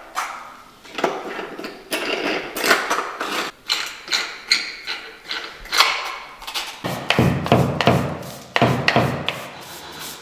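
Blue plastic tile-levelling caps being spun down onto their threaded posts over floor tiles: an irregular run of sharp plastic clicks and knocks. They turn into heavier, deeper knocks from about seven seconds in.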